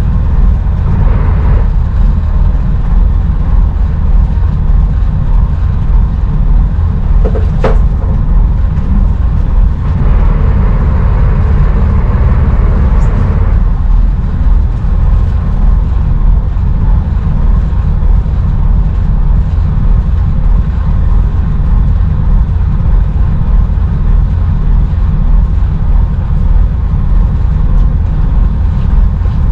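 Loud, steady low rumble on a fishing boat's open deck, with a sharp click about eight seconds in.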